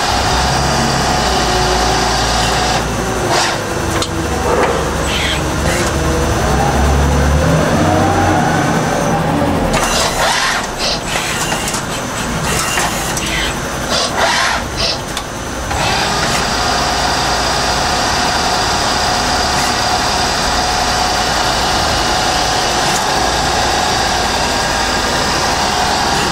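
Tsugami BU26-SY Swiss-type CNC lathe running a cycle. Its spindle drive whine glides up and back down a few seconds in. From about ten to sixteen seconds there is a noisy stretch with sharp knocks, and after that the machine settles into a steady hum with a held tone.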